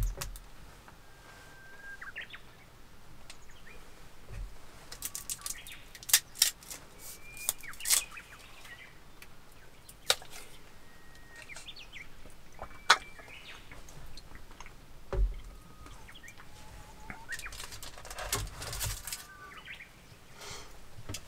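Small crackles and sharp clicks of a paper juice carton and its plastic straw wrapper being handled, unwrapped and the straw pushed in, with a flurry of crackling near the end. Short high bird chirps come in here and there.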